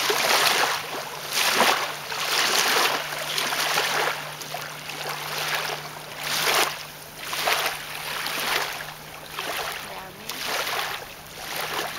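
Small waves lapping and washing onto a pebbly lake shore, coming in uneven surges about once every second or two.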